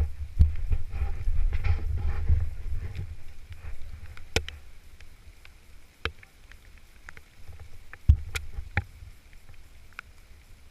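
Low rumble on the microphone for about the first three seconds, then a handful of scattered sharp clicks.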